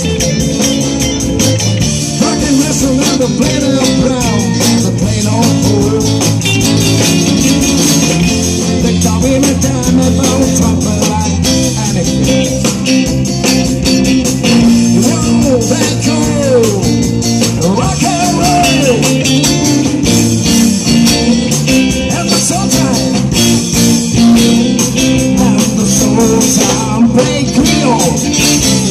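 Live rock band playing, with electric guitars over a steady beat and a male singer's vocals.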